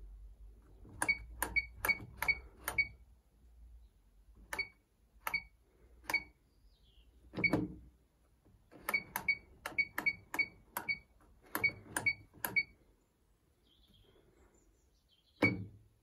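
Control panel of an Electrolux QuickWash QWC commercial washing machine giving a short click-beep for each step as its rotary knob is turned, about twenty in all: quick runs of several steps broken by pauses. A fuller click near the end comes as the knob is pressed.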